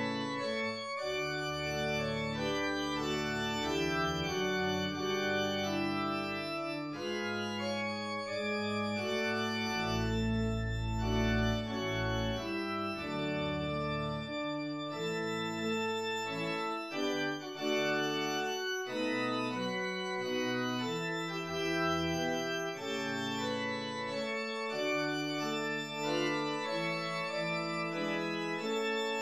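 Organ music: slow, sustained chords changing every second or two over held deep bass notes.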